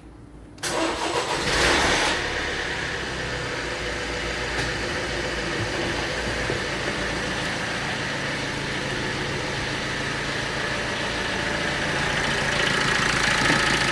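Vauxhall Astra K's 1.6 CDTI four-cylinder diesel starting about half a second in, flaring briefly and then settling into a steady idle. It has the timing-chain rattle common to these engines, which the mechanic blames on a badly made chain tensioner.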